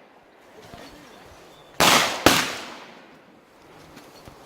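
Two pistol shots from an STI 2011 Open-division handgun, about half a second apart, near the middle. Each shot trails off in a short echo.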